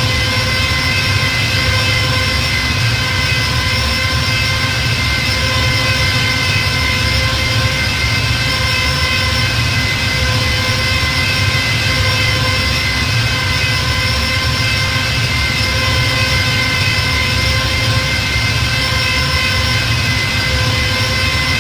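Star Wars TIE fighter engine sound effect as a steady ambient drone: an unbroken whine of several evenly spaced tones over a low rumble and hiss, with no change in pitch or level.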